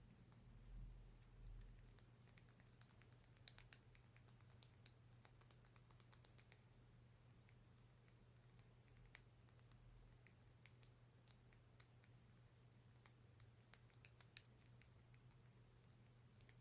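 Faint, irregular light taps and clicks on a lip gloss container, coming in clusters near the start and again about two-thirds of the way through.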